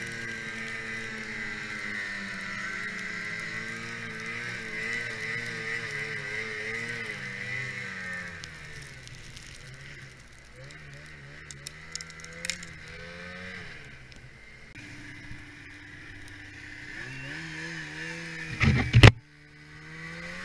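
1991 Yamaha Phazer II snowmobile's two-stroke twin engine running through deep powder, its pitch wavering with the throttle; it eases to a lower, softer note about midway, then rises again. Scattered clicks in the middle and a couple of loud knocks near the end, after which the sound drops out for a moment.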